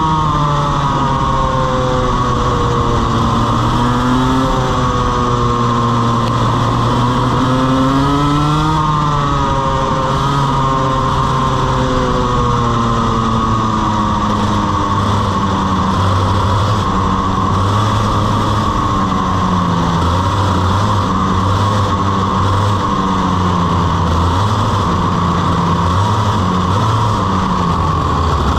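Two-stroke TaG racing kart engine at race speed, heard onboard: its pitch drops and climbs again several times in the first half as the driver lifts and gets back on the throttle, then holds steadier at high revs with small dips.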